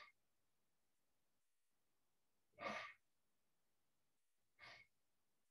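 A person breathing out deeply and slowly in a qigong breathing exercise: two short, breathy exhalations, one about three seconds in and a fainter one near the end, with near silence between.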